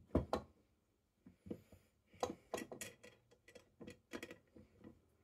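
Irregular clicks and knocks of an old breast drill's metal parts (frame, large gear wheel and pinions) being handled by hand against each other and the wooden bench, about a dozen strikes with the sharpest just after the start.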